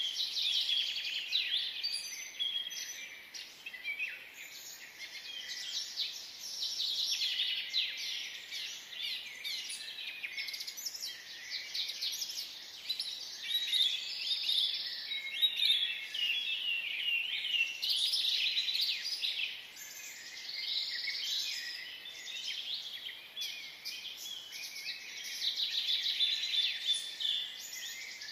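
Many birds chirping and twittering together, a dense chorus of overlapping quick calls that swells and fades.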